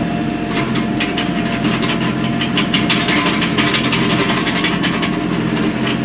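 Kioti NS6010 tractor's diesel engine running steadily while pulling a chopper implement used as a crimper, with a dense clattering rattle from the implement starting about half a second in.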